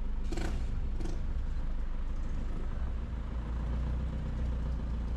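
Vehicle engine running steadily in low gear, heard from inside the cab as a low rumble that grows heavier about three seconds in. Two brief, sharper sounds come near the start, less than a second apart.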